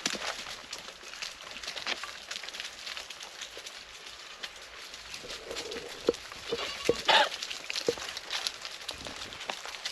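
Goats bleating a few times, the loudest call about seven seconds in, over steady rustling and crackling of fresh straw bedding.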